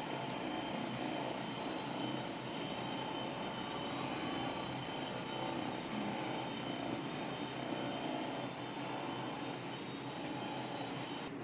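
A steady, even hiss with a faint high tone running through it, like a motor or air blower, with no knocks or joint cracks. The high part drops out just before the end.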